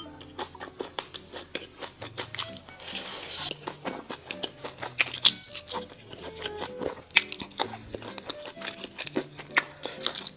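Crunching and chewing as mala xiang guo is eaten, with many sharp crunchy bites and a longer crackling crunch about three seconds in. Soft background music with held melody notes plays underneath.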